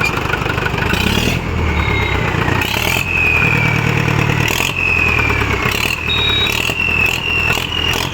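Turbocharged Mahindra 475 tractor diesel engine, revved in repeated short blips. After each blip the turbocharger gives a high whistle that falls in pitch as it spools down.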